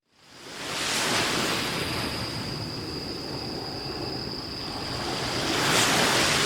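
Waves washing onto a beach, the surf swelling about a second in and again near the end, over a steady high-pitched tone.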